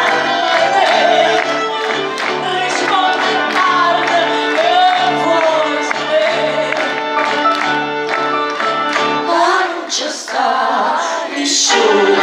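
A woman singing with a live band of violin, double bass and percussion, the bass playing a pulsing repeated pattern. About three-quarters of the way through, the accompaniment drops away for a couple of seconds over a rising slide, then the full band comes back in near the end.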